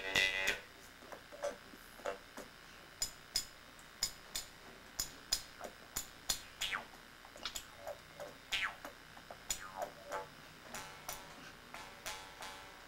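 Amis mouth harp (jaw harp) played in a quick, uneven rhythm: a run of sharp twanging plucks, each ringing briefly, with the pitch of several sliding downward as the mouth shape changes.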